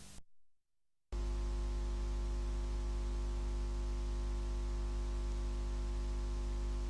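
A brief crackle of static, then, about a second in, a steady low electrical mains hum with a stack of higher overtones and a light hiss, the hum of an old videotape's audio track during its title card.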